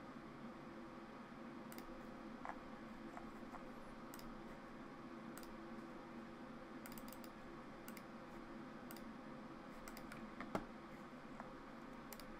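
Scattered soft clicks of a computer mouse and keyboard, single or in short clusters with pauses between, over a faint steady room hum.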